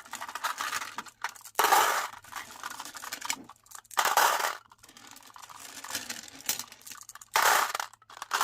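Glass marbles clattering and clinking, in three loud bursts a couple of seconds apart with lighter clinks in between.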